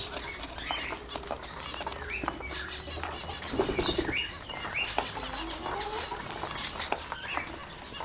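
A flock of Indian ringneck parakeets feeding together: scattered short, high calls and squawks mixed with many small sharp clicks and bursts of wing flapping.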